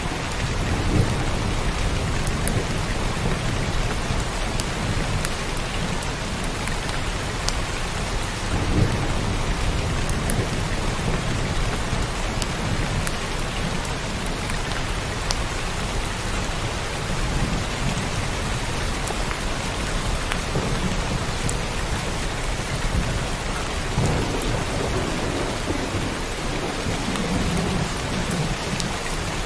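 Heavy rain falling steadily in a continuous hiss, with low thunder rumbling now and then beneath it.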